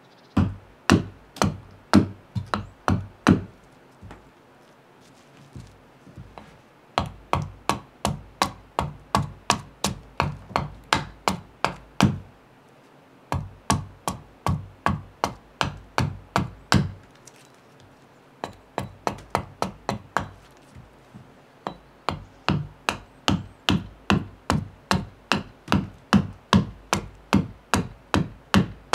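Carving hatchet hewing a split birch blank on a chopping block: runs of sharp chopping strikes, about two a second, broken by short pauses.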